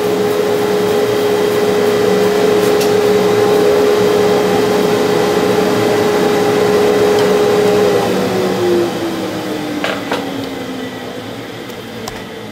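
Bandsaw running with a steady hum while it cuts through a round wooden bowl blank. About eight seconds in it is switched off, and the hum falls slowly in pitch and fades as the wheels and blade coast down.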